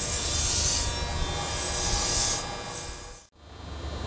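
Kintetsu 3200 series electric train running at low speed, its Mitsubishi GTO-VVVF traction gear buzzing as steady thin tones over the running noise. The sound fades and breaks off abruptly about three seconds in, then quieter train noise resumes.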